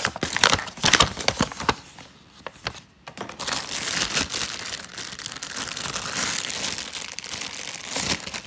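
Clear plastic packaging and paper being handled, crinkling. Sharp crackles come in the first two seconds, then after a brief lull a steadier crinkly rustle runs for about five seconds.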